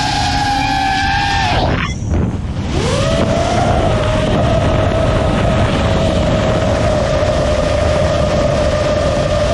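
FPV quadcopter's brushless motors and 5.1-inch tri-blade Ethix P4 Candy Cane props whining. About two seconds in the throttle is chopped and the pitch drops sharply to near quiet. It then spools back up and holds a steady whine over a low rushing noise.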